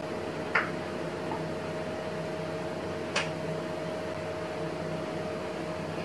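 Steady machine hum with a faint held tone, and two light clicks, about half a second and about three seconds in, as small ornaments are set down on a wooden step-stool shelf.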